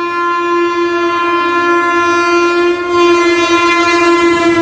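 Locomotive horn on an approaching express train: one long steady blast that grows louder as the train closes in, dipping slightly in pitch near the end as it reaches the platform. The rush of the train builds under it.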